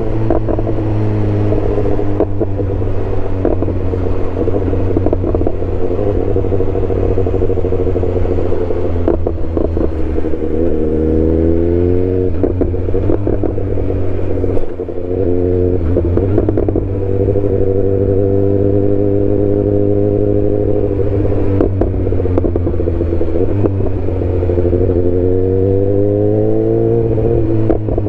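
BMW S1000R's inline-four engine running loudly at fairly steady revs, its pitch climbing briefly about eleven seconds in, again around fifteen seconds, and near the end.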